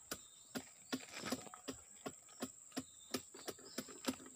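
Faint, regular tapping, about three taps a second, over a steady high thin whine.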